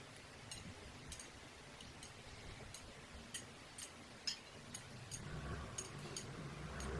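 Close-up chewing sounds: an irregular run of small, sharp mouth clicks, one or two a second, as food is chewed with the mouth close to the microphone.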